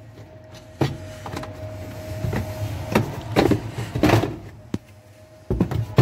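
Plastic cover of a semi-automatic twin-tub washing machine being worked loose and pulled off by hand: a string of separate plastic knocks and clicks with handling and scraping between them.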